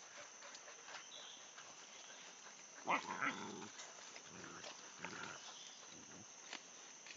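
Hunting dogs worrying a downed animal, making short bouts of low sound: the loudest about three seconds in, then three fainter ones over the following few seconds.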